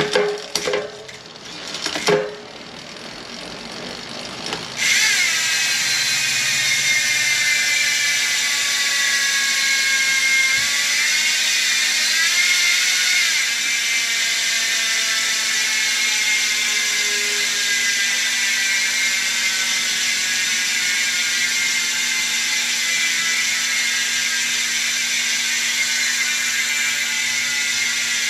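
Hunt TrailWide rear hub coasting: after a few clicks from the turning drivetrain, the freehub pawls start ratcheting about five seconds in. The rear wheel is freewheeling with the cassette still, and the fast, loud, high buzz slows gradually as the wheel spins down.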